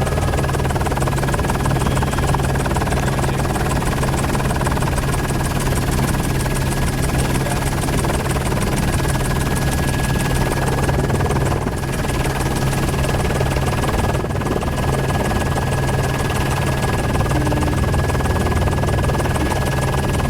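News helicopter in flight: a steady drone of rotor and engine.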